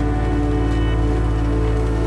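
Calm instrumental background music, held and steady with a deep drone underneath.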